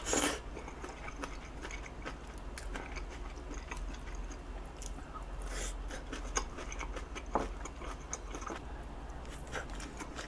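A person chewing food close to the microphone, with many small mouth clicks and a couple of short louder bursts.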